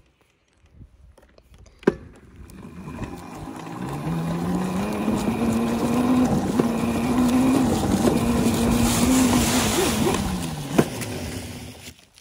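Child's pit bike (small dirt bike) setting off. After a sharp click about two seconds in, its motor whine rises in pitch as the bike speeds up and holds steady. The whine then drops away near the end as the bike slows, over a rushing noise of the ride.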